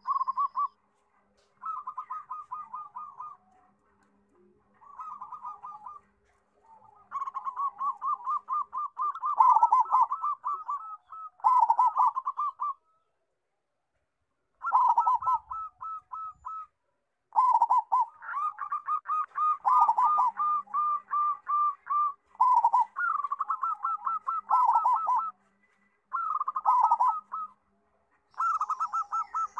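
Zebra dove (perkutut), a local bird with a big voice, singing phrases of rapid staccato cooing notes. The phrases run from under a second to several seconds, with short pauses between them.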